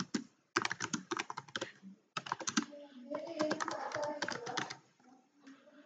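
Computer keyboard typing: quick runs of keystrokes in about three bursts, with short pauses between them.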